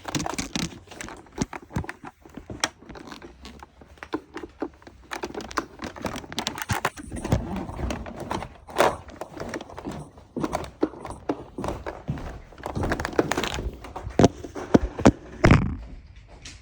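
Irregular handling noise: knocks, thuds and crinkling as things are moved about, with several sharp, loud knocks near the end. No vacuum motor is running.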